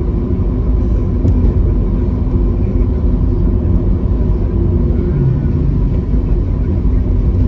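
Steady low rumble of a car's engine and tyres on a wet road, heard from inside the moving car's cabin.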